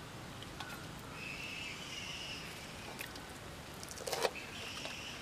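Faint clicks of a knife and hands working on a steel plate, with a short clatter about four seconds in. A faint high-pitched call runs in the background for about two seconds, then again briefly near the end.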